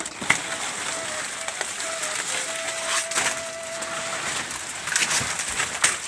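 Fresh banana leaves rustling and crackling as they are handled and pushed into a slatted wooden feeding rack for goats, with a few sharp knocks, one just after the start and one near the end. A faint thin tune of short notes runs underneath, one note held for about a second and a half in the middle.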